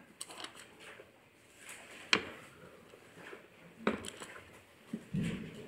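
Faint rustle of Bible pages being turned, with a few sharp taps and page flicks, the clearest about two and four seconds in.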